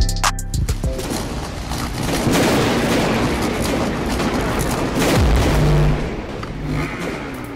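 Cinematic logo-reveal sound effects: a long crackling noise rush like an explosion, with a heavy boom about five seconds in, fading near the end.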